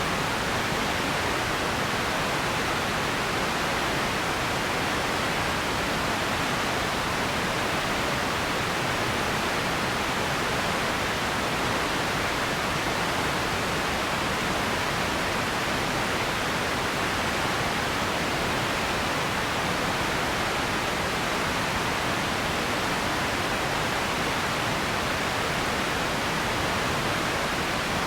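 Radio static: a steady, unbroken hiss with no tones or crackles.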